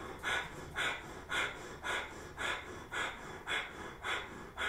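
Breath of fire, the kundalini yoga breath: short, sharp exhalations through the nose driven by pumping the navel, in a steady rhythm of about two a second.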